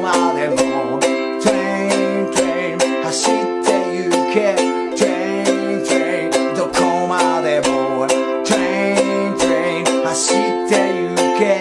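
G-Labo Hajimete Ukulele strummed in a steady rhythm, about four strokes a second, changing between C and F chords, with a man singing along over it.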